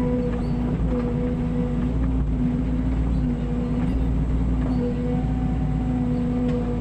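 Mini excavator's diesel engine running steadily under work, with a constant low rumble and a steady whine.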